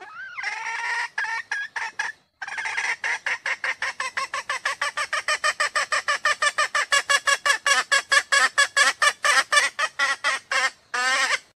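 Female red junglefowl calling: a rising opening note, then a rapid, even run of short clucking notes, about five a second, ending with one longer note.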